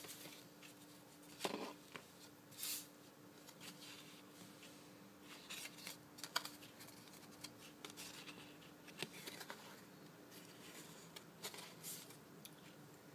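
Paper and card stock handled by hand: scattered soft rustles, slides and light taps as a patterned paper panel is laid onto a folded card, pressed down and the card turned over, with a faint steady hum underneath.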